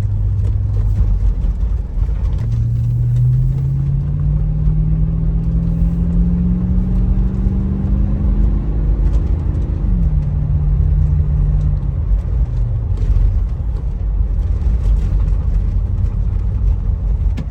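Toyota 100-Series Land Cruiser under way with its freshly repaired exhaust: a steady low rumble with no rattles, the engine note rising slowly as it accelerates, then dropping suddenly about ten seconds in, as at a gear change.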